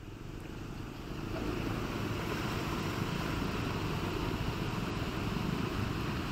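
Swollen floodwater rushing through an overflowing drain: a steady rushing noise that builds about a second in.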